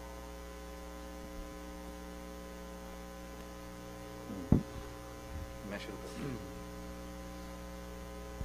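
Steady electrical mains hum from the microphone and sound system, with one sharp bump of the handheld microphone being handled about halfway through.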